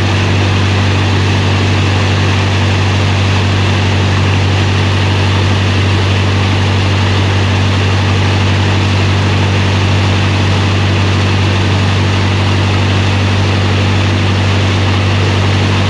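Motorboat engine running at a steady speed: a loud, even, low drone.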